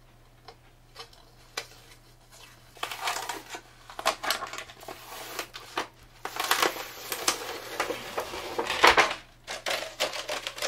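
Old adhesive textured build sheet being peeled off an aluminum 3D-printer build plate, the sticker and its glue layer tearing away in a rapid series of crackles. The crackling starts about three seconds in and is loudest near the end.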